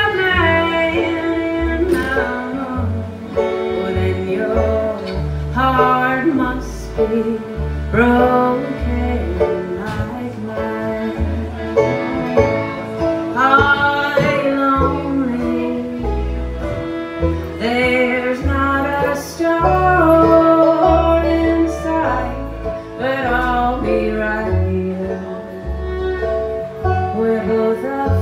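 Live acoustic country-bluegrass band: a woman singing lead over her strummed acoustic guitar, with upright bass and fiddle.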